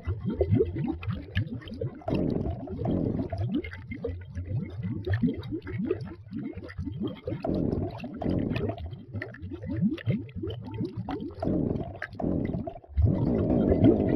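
Water bubbling and gurgling in a tub, a rapid run of bubble pops, with a brief drop just before the end and a denser stretch after it.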